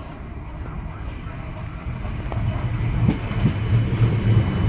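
Class 456 third-rail electric multiple unit pulling out and running past close by, a low rumble of motors and wheels on rail that grows louder, with a few clicks in the second half.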